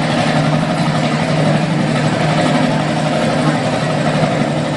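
Engine sound effect: a steady, loud idling engine hum that holds without change.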